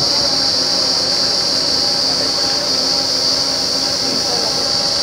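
Truck-mounted borewell drilling rig running: a loud, steady high-pitched hiss with a low machine hum beneath it.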